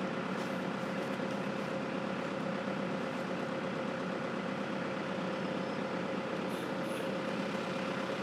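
Steady machine drone with a constant pitched hum, unchanging throughout.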